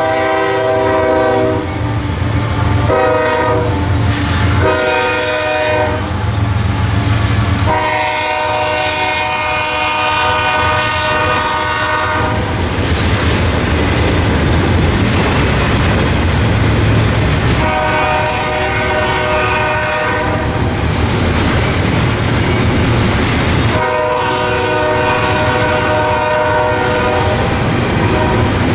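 Locomotive air horn sounding a series of blasts, several chord tones at once, with two long ones about eight seconds in and near the end, over the steady low rumble of a passing train.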